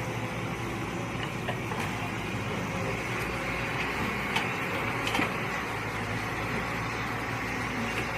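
Mini excavator engine running steadily, with a couple of short knocks about halfway through.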